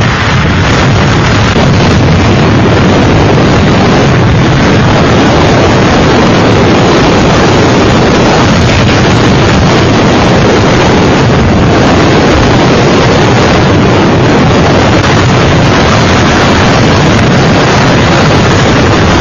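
Storm wind blasting the microphone: a loud, steady rush of noise with no letup.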